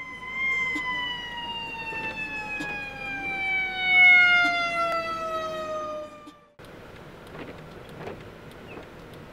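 A fire engine's siren winding down in one long, slowly falling tone that cuts off abruptly about six and a half seconds in. After the cut comes a quieter, steady hiss of a car driving.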